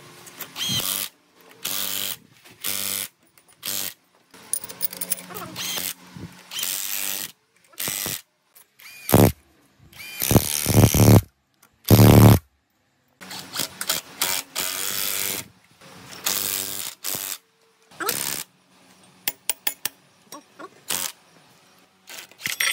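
Short bursts of workshop power-tool and ratchet sounds, cut together with sudden silent gaps between them.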